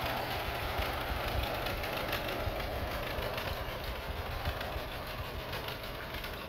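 1957 Ford tractor's engine running as the tractor drives off, a steady rumble that grows gradually fainter as it pulls away.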